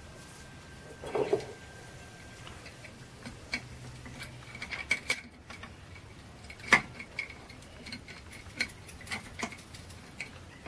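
Scattered light metallic clicks and clinks, about half a dozen over several seconds, as a magnet rod, a long socket and an aluminium plate are set onto a valve spring retainer of an Alfa Romeo Boxer cylinder head. One clack about two-thirds of the way through is louder than the rest.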